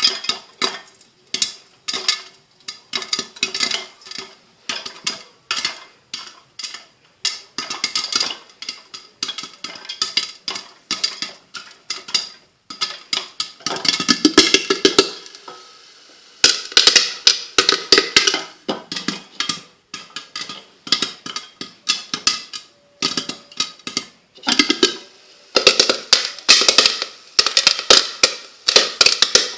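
Popcorn kernels popping in hot oil in a covered saucepan: a rapid, irregular run of sharp pops, with thicker runs around the middle and near the end.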